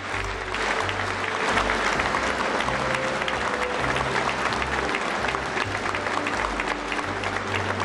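Audience applauding steadily, a dense patter of many hands clapping, with background music's low bass notes underneath.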